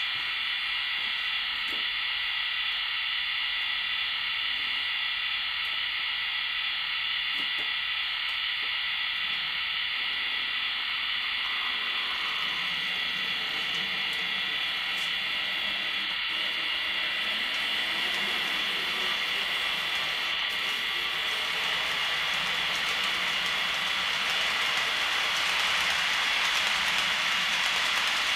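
Märklin model train rolling along the layout track, its rolling rattle and motor noise growing from about twelve seconds in and loudest near the end as it passes close by, over a steady hiss with a high whine.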